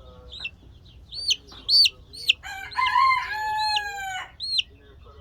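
A rooster crows once about halfway through, one long call of about two seconds, over a steady run of short, high chick peeps.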